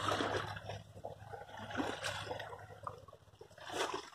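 Fast-flowing river water rushing, with the river high and rough after a rise.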